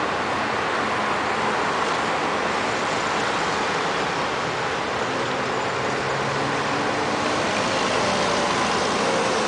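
Steady city traffic noise: a continuous wash of road vehicles, with faint engine hum drifting in and out.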